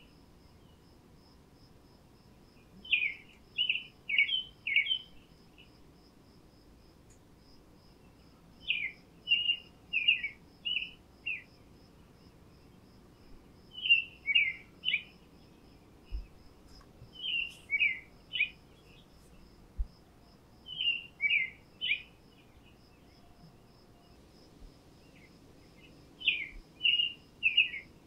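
A songbird singing short phrases of four to six quick, clear notes, repeated every five seconds or so. Under it runs a faint, even, high chirping of an insect, about three chirps a second.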